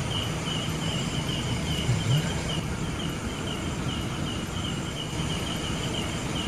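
Night insects chirping steadily, a high pulsing chirp about four times a second, over a low continuous hum.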